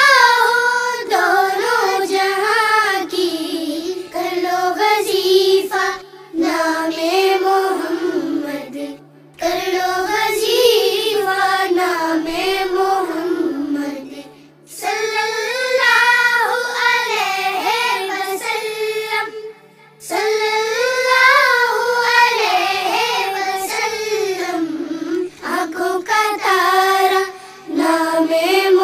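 A child's voice singing an Urdu naat, an Islamic devotional poem in praise of Muhammad, in long melodic phrases broken by short pauses every few seconds.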